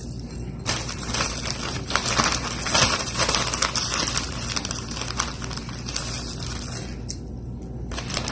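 Crinkling and rustling of a brown sugar package, with many small clicks, as brown sugar is added to the sauce. It dies down about a second before the end.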